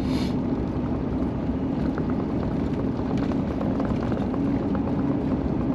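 Steady engine and road drone of a big Chevrolet being driven on a snowy interstate, heard from inside, with faint scattered ticks.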